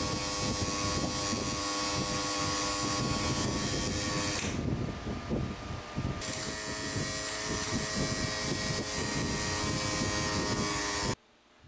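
Pulse MIG welding arc from an HTP ProPulse 220 running 0.030 steel wire under 90% argon / 10% CO2: a steady harsh buzzing hiss over a hum of several steady tones, starting suddenly as the trigger is pulled. The hiss drops away for about a second and a half near the middle, then the arc resumes and cuts off suddenly near the end.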